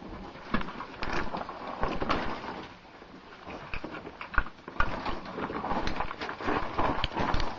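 Caving gear and clothing scraping and knocking against rock as a caver crawls through a tight passage: irregular clacks, scuffs and rustling.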